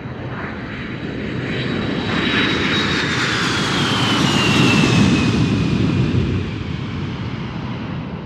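Airplane flyby sound effect: engine noise swells to a peak about five seconds in and then fades, with a high whine sliding down in pitch as the plane passes.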